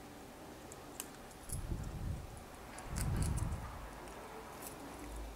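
Scattered small metallic clicks and ticks as split-ring pliers open a steel split ring and work it onto a spoon lure made from a cut-down kitchen spoon, with a few dull handling bumps, the strongest about three seconds in.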